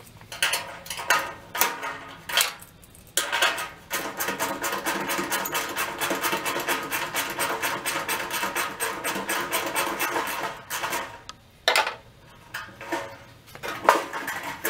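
Bolts holding a tractor's front panel being run out with a ratcheting tool, metal on metal. A few separate clicks come first, then about six seconds of steady, rapid clicking with a metallic ring, then a few louder single clicks near the end.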